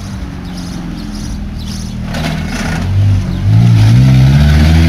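A car engine on the street accelerating past, its low hum growing louder and rising in pitch, loudest from about three and a half seconds in.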